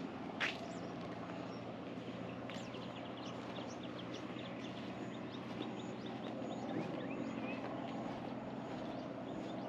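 Many short, high bird chirps over a steady low hum, with a single sharp knock about half a second in.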